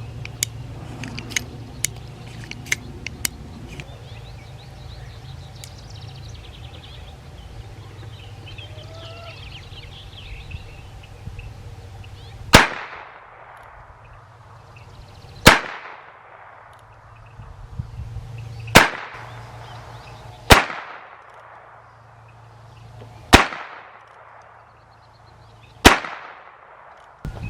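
Heritage Rough Rider .22 single-action revolver fired six times, one sharp shot every two to three seconds, with a brief ringing tail after each. A run of light clicks comes first, in the opening three seconds.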